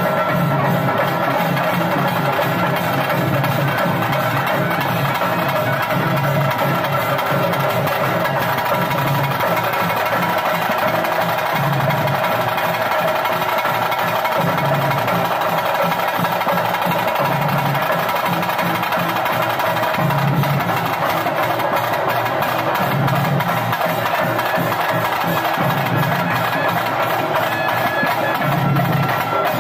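Loud festival music: continuous drumming under steady held melodic tones, with a deep beat that comes round about every three seconds.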